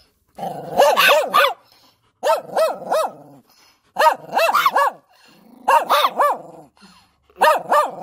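A dog barking in quick, high-pitched runs of four or five barks, five runs in a row with short pauses between them.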